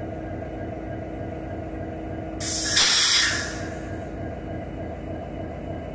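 A sudden loud burst of compressed air hissing from an SD70M-2 diesel locomotive as it rolls slowly past, lasting about a second and then fading. Underneath runs the steady rumble of the locomotive's engine and the moving train.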